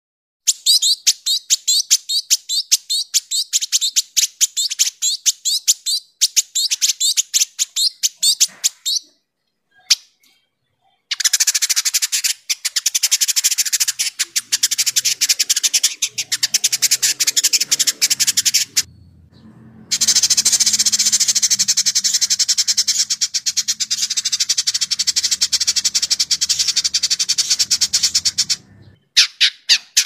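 Village indigobird singing its dense, rapid chatter (crecetan): a run of quick, sharp, high notes, then after a short pause two longer bursts of even tighter chattering, each ending abruptly. A faint low hum lies under the later bursts.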